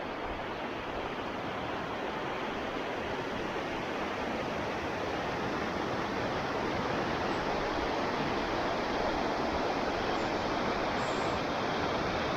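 Rushing water of a mountain creek or waterfall, a steady roar that grows slightly louder.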